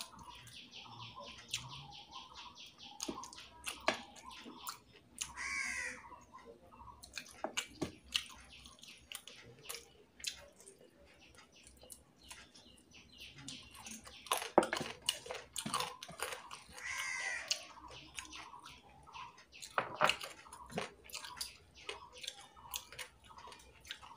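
Quiet chewing, lip smacks and sharp clicks of eating rice and curry by hand from a steel bowl. Birds call in the background, with a crow cawing a couple of times.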